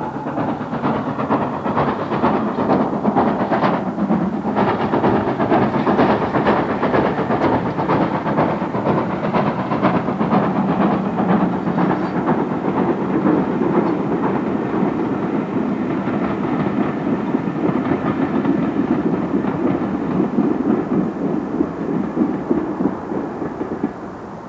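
Great Western Manor-class steam locomotive working hard at the head of a train, chuffing in quick, rhythmic exhaust beats over the clatter of its coaches, fading as it draws away near the end.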